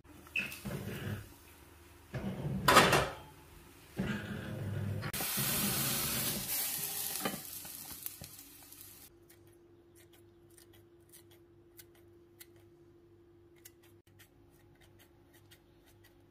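Frying pan and its glass lid knocking and clattering, the loudest knock about three seconds in, then several seconds of frying sizzle and steam hiss as the hot pan is handled and the cooked cake is turned out, fading away. Faint light ticks follow.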